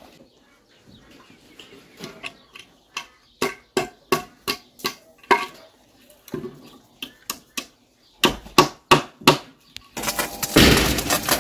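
A garden hose spraying water, starting near the end. Before it comes an irregular run of sharp clicks, two or three a second.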